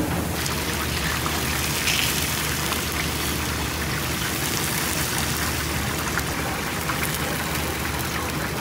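Food sizzling in hot oil: a steady hiss peppered with small crackles that starts abruptly and keeps going, over a steady low hum.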